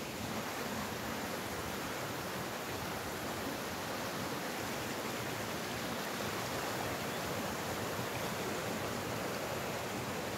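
Shallow mountain stream rushing over boulders and small rapids: a steady, even wash of running water.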